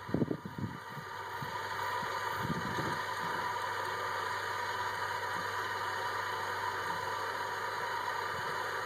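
Electric drive of a Freedom Sciences powered turning seat running steadily, a level hum, as the seat swings out through the truck's door opening. A few soft thumps come just before the motor starts about a second in.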